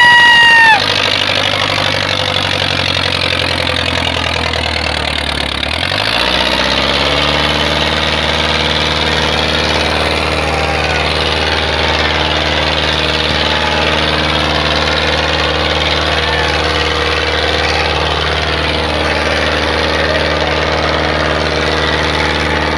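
HMT 5911 tractor's diesel engine running steadily, its note shifting once about six seconds in and then holding steady. A brief loud high-pitched tone sounds at the very start.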